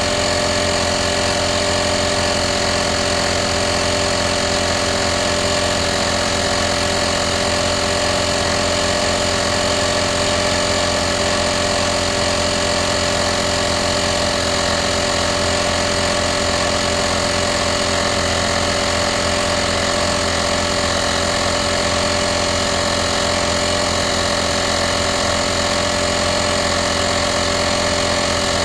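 VacLife portable tire inflator's small electric air compressor running steadily under load, pumping air into a car tire.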